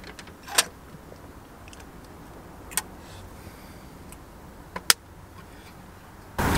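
A handful of sharp metallic clicks and taps from an aluminium energy-drink can being handled, spaced a couple of seconds apart over a quiet background, with a double click near the end. Just before the end a much louder edited-in sound starts abruptly.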